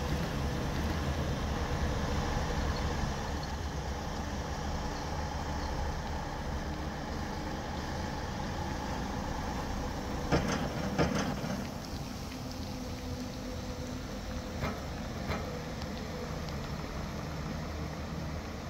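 Excavator's diesel engine running steadily with a low drone. Two sharp metal clanks come a little past halfway, and two fainter knocks follow a few seconds later.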